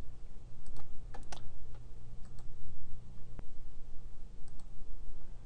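Computer mouse clicking while working through a software menu: several short, sharp clicks, some in quick pairs, over a steady low hum.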